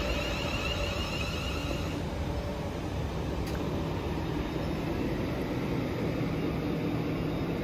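London Northwestern Railway Class 350 Desiro electric multiple unit moving along the platform: a steady rumble of wheels on rail, with a faint whine that fades out about two seconds in.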